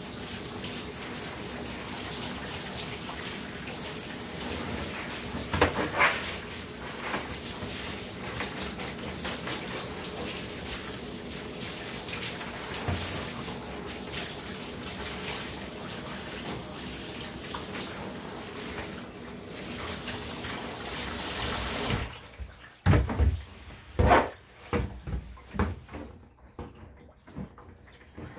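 Handheld shower sprayer spraying water onto a dog's wet coat in a bathtub, a steady hiss that cuts off suddenly about three-quarters of the way through. A few separate knocks follow.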